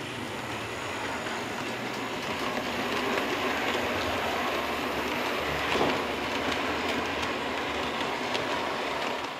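Model freight train rolling past on the layout's track: wagon wheels rattling and clicking over the rails in a steady run that grows louder, with one sharper clack about six seconds in. It cuts off suddenly at the end.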